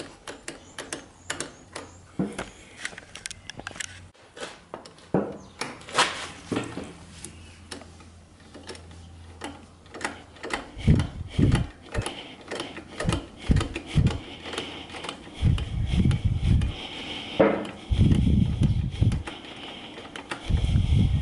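Irregular metallic clicks and clatter of a motorcycle's rear brake pedal being pumped and the hydraulic rear brake caliper being handled, working the piston out of the caliper. In the second half, low dull thumps join in.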